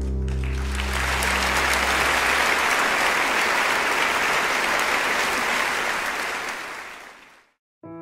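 A crowd of wedding guests applauding, swelling within the first second and fading out near the end. The last notes of a piano piece die away beneath it at the start, and a new piano piece begins just after the clapping stops.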